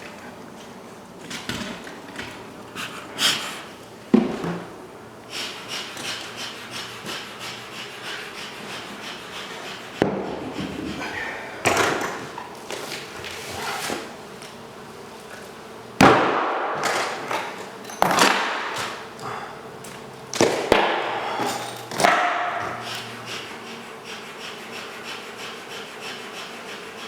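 A series of hard knocks and cracks, spaced a few seconds apart, with scraping and rattling after several of them: tools striking and breaking into a wall or ceiling to open up the cavity that holds a beehive.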